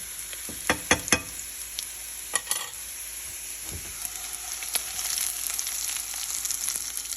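Chicken pieces sizzling in butter in a frying pan, with a few sharp clicks of a utensil against the pan about a second in and again around two and a half seconds. The sizzle swells slightly in the second half.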